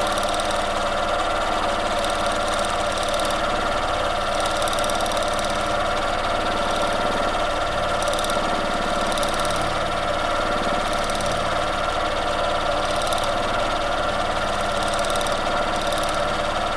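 Sewing machine running steadily without a pause while free-motion quilting, the needle stitching through the quilt layers as they are guided by hand.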